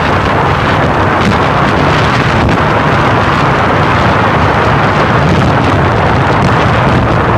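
Loud, steady rush of wind buffeting the microphone on a moving ATV, with the ATV's engine running underneath.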